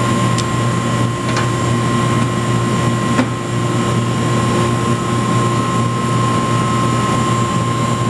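Central air-conditioner outdoor condenser unit running steadily: the compressor's low hum and the condenser fan's rush of air, with a faint steady high tone. A couple of light taps about a second and three seconds in.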